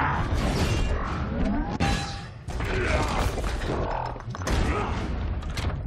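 Sound effects of a giant-robot fight: a string of heavy metal-and-concrete impacts and crashing debris, with whirring, gliding mechanical servo sounds between the hits.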